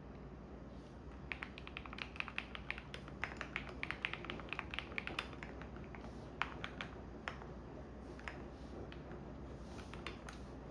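Typing on a computer keyboard: a quick run of key clicks for about four seconds, then a few scattered keystrokes, over the steady low hum of a washing machine running.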